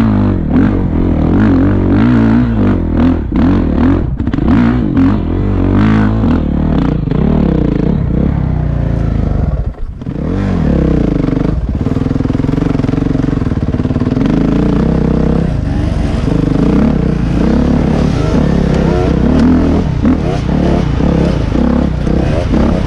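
Dirt bike engine heard on board, revving up and down hard over a rough climb, with frequent short knocks. About ten seconds in the throttle briefly closes, then the engine settles into a steadier run.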